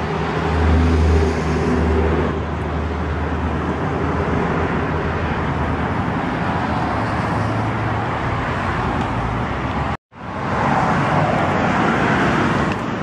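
Lamborghini Aventador's 6.5-litre V12 idling steadily after start-up. The sound cuts out abruptly for a moment about ten seconds in, then the running resumes.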